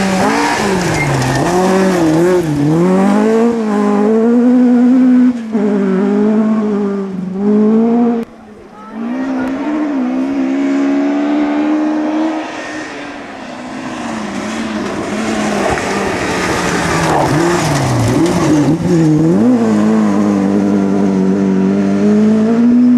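Rally car's engine running hard on a gravel forest stage. Its note climbs and drops over and over as the driver works the throttle and changes gear, with a brief dip about eight seconds in.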